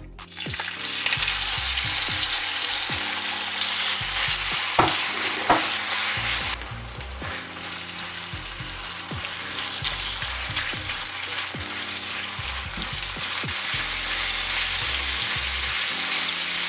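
Chicken pieces frying in hot oil in a pot with a steady sizzle that builds up in the first second, being stirred, with two sharp knocks about five seconds in.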